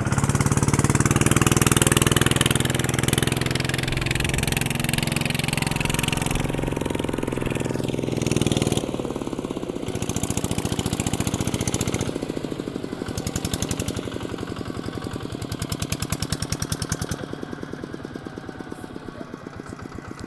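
Kubota RT140 single-cylinder diesel engine on a walking tractor running hard under load. About nine seconds in it drops to a slower beat of separate firing strokes, which grow quieter toward the end.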